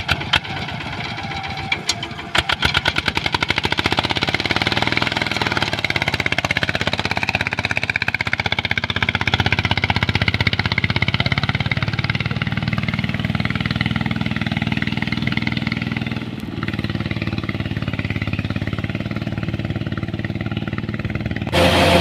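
An engine running with rapid, even firing pulses. It gets louder about two seconds in and changes slightly in tone about 16 seconds in.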